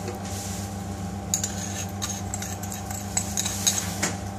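Scattered light clinks and ticks of kitchen utensils, beginning about a second in, as sugar is added to a blender jug, over a steady low hum.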